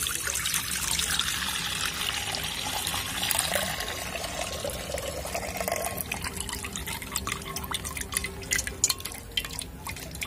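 Milk poured in a stream into a metal karahi, splashing steadily. After about six seconds the pour thins to a trickle and scattered drips.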